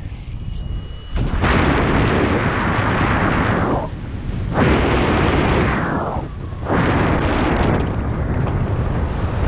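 Wind buffeting the microphone of a paraglider pilot's camera in flight, coming in loud rushing gusts with short lulls near the start, about four seconds in and about six and a half seconds in.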